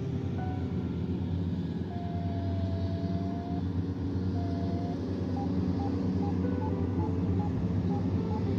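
Background music: slow held melody notes stepping up and down, with more short notes near the end, over a dense low rumble.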